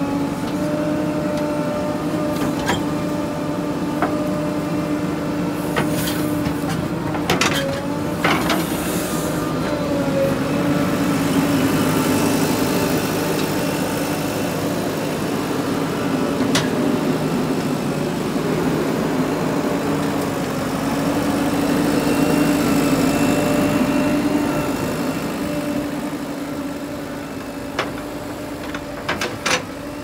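JCB 3DX backhoe loader's diesel engine running steadily under load as the backhoe digs and loads mud, with a few sharp clanks.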